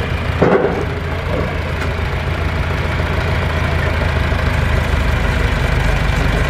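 John Deere tractor engine running steadily at low speed, with a short louder noise about half a second in.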